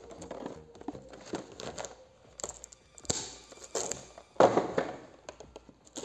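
Plastic shrink-wrap film being torn and crinkled off small boxes by hand, in irregular crackly bursts, loudest about four and a half seconds in.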